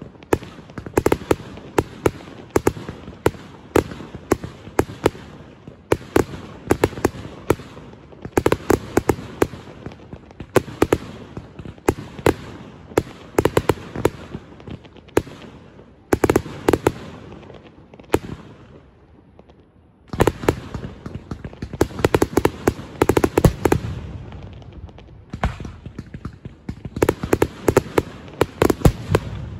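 Fireworks finale barrage: rapid, dense strings of sharp cracks and bangs in clusters, easing off to a brief lull a little past the middle, then starting again.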